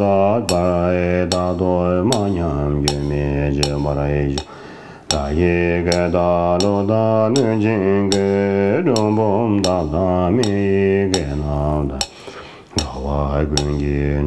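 A man chanting a Tibetan Buddhist prayer in a slow, held melodic line, with sharp clicks keeping time about twice a second. The chant breaks off briefly twice for breath.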